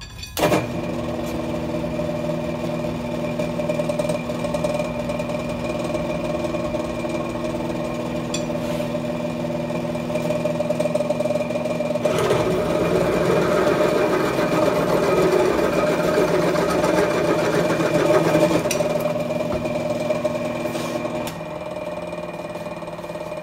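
Small Bridgeport-style milling machine starting up about half a second in and running steadily, with a drill bit cutting a hole through a quarter-inch metal bar for several seconds in the middle, a rougher grinding noise over the motor's hum. Near the end the motor's tone drops away and the sound grows quieter.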